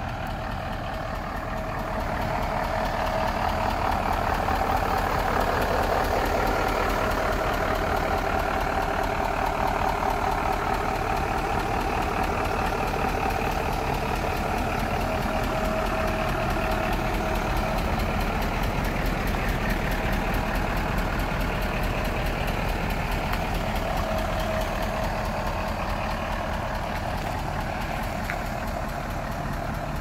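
Diesel engine of a Tata Novus 6x4 concrete mixer truck idling steadily.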